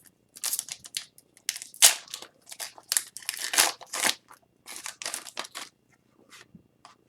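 Hockey card packs being opened and the cards handled: a quick, irregular run of short papery rustles, crinkles and slides of the wrappers and card stock, thinning to a few faint ticks about six seconds in.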